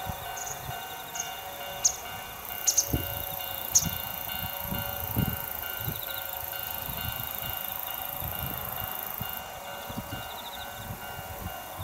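Railway level-crossing warning bell ringing steadily in an even repeated pattern, with wind buffeting the microphone. A few short high chirps sound in the first four seconds.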